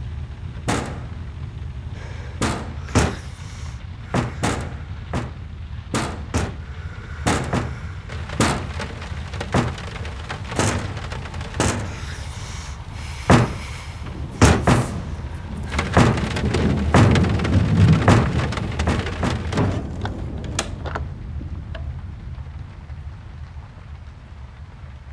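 Sharp, irregular taps against window glass, roughly one a second, over the steady low rumble of a rainstorm. The rumble swells like rolling thunder a few seconds past the middle, then fades.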